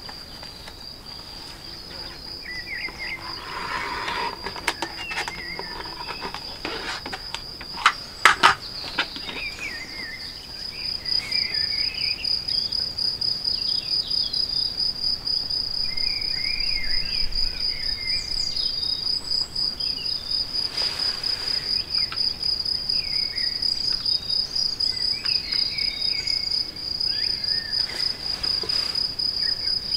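Steady high insect trill, pulsing rapidly, growing louder about a third of the way in, with scattered faint chirps. A few sharp knocks about eight seconds in.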